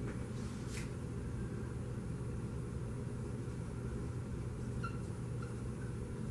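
Steady low room hum, with a few faint short squeaks of a dry-erase marker writing on a whiteboard about five seconds in.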